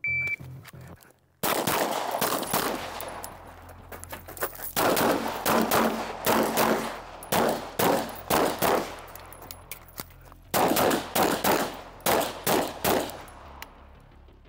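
Shot timer beeps once, then a 9mm Glock 19 pistol fires a stage of about a dozen seconds: quick strings of shots with short pauses as the shooter moves between positions, the shots ringing out across the range.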